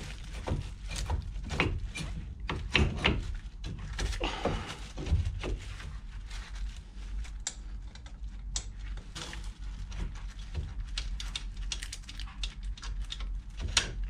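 Irregular clicks and knocks of metal brake parts and tools being handled and seated on a car's wheel hub during a brake job.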